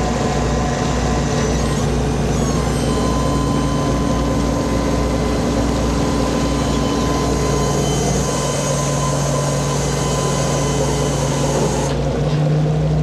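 Fishing boat's diesel engines and deck machinery running steadily while the purse seine net is hauled aboard: a low steady drone with a thin steady whine through the middle. The sound changes abruptly near the end.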